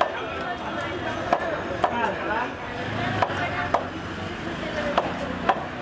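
Sharp chopping knocks as bhetki (barramundi) is cut on a large fish-cutting blade over a wooden block: six strokes, in three pairs about half a second apart.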